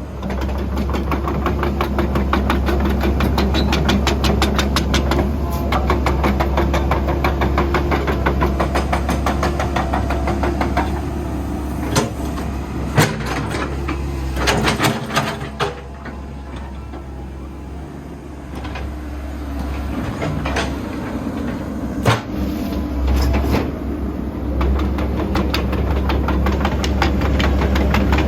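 Komatsu PC138US-8 hydraulic excavator working: its diesel engine runs under load with a deep, steady rumble, easing off briefly past the middle, while several sharp metallic clunks ring out from the working machine.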